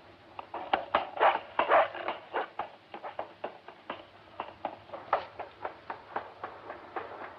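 A small boy's running footsteps on a paved street, quick regular steps about three a second. They start about half a second in and are loudest over the first two seconds.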